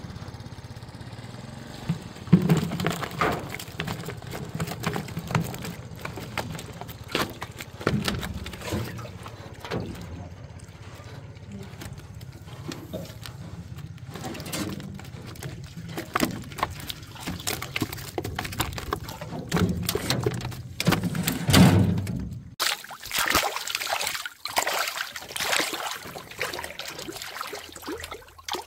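Water pouring, dripping and splashing, with scattered knocks and handling noises over a steady low hum. About three-quarters of the way through the hum stops, and clearer splashing of water takes over.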